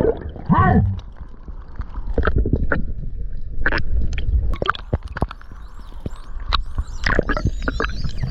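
Dolphins heard underwater: scattered sharp clicks, and from about six seconds in, many overlapping high whistles that rise and fall, over a low rumble of moving water. A low swooping tone sounds just after the start.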